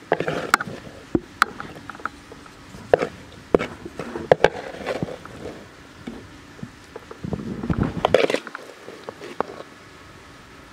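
Wooden spatula scraping and knocking against a metal pan and a steel plate as crumbled scrambled egg is scooped out and served. It comes as a series of irregular sharp clicks and scrapes, with a longer, busier scraping stretch near the end.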